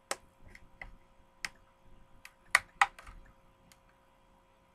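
Hot Wheels plastic blister pack being pried open by hand: a series of sharp plastic clicks and snaps, the two loudest close together about two and a half seconds in.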